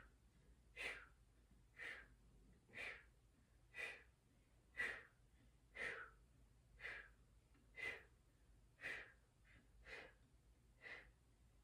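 A woman's little exhales, short puffs of breath about one a second, paced breathing to keep the deep core engaged while holding a plank.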